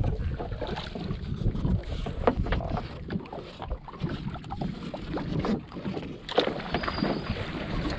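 Fishing net being pulled in by hand over the side of a small boat: irregular rustles and knocks of the mesh and its gear against the hull, the sharpest knock a little after six seconds in, over a steady low rumble.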